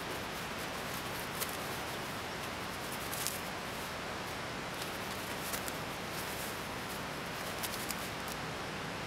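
Heavy rain falling steadily on the forest: a constant even hiss, with scattered sharp ticks a few times over.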